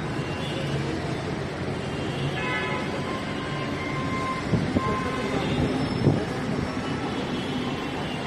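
Electric metro train running on the elevated track, a steady rumble, with three sharp knocks around the middle.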